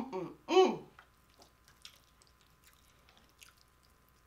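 A woman's closed-mouth "mm-mm" hum of enjoyment while eating, two short notes in the first second with the second falling in pitch, then faint soft clicks of chewing.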